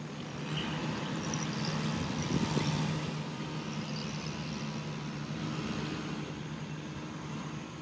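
A steady low mechanical hum over a faint outdoor hiss, swelling slightly about two to three seconds in.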